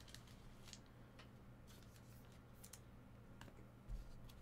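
Near silence: faint clicks and ticks of trading cards being handled, over a steady low electrical hum, with a soft low thump about four seconds in.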